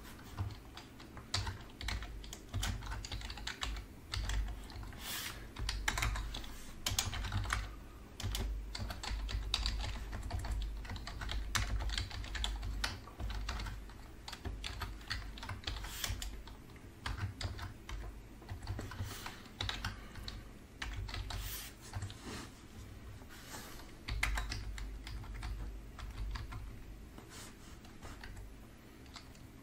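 Typing on a computer keyboard: irregular runs of keystrokes with short pauses, as an address and phone number are entered into form fields.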